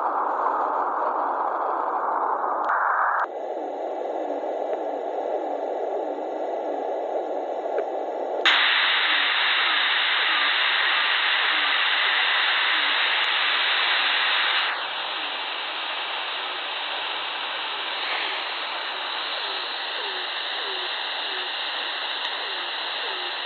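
Shortwave radio receiver hiss and static on 3510 kHz. The hiss steps in tone and loudness as the receiver's bandwidth is changed: it narrows and dulls about three seconds in, widens and gets louder at about eight and a half seconds, and dulls again near fifteen seconds. Faint short chirps repeat about twice a second under the hiss.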